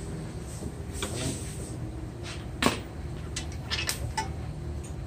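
A few short metallic clicks and knocks, the loudest about two and a half seconds in, from an air impact wrench, socket and bolts being handled at a car's front brake caliper, over a low steady hum.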